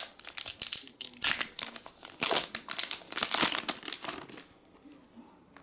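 Foil wrapper of a trading-card pack crinkling in repeated bursts as it is opened and the cards are pulled out, going quieter about four and a half seconds in.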